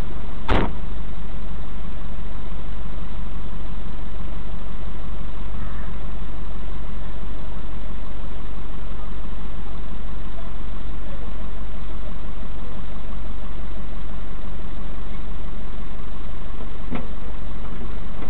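A vehicle's engine idling steadily, heard from inside the cab through a dashcam's microphone, with a brief sharp click about half a second in.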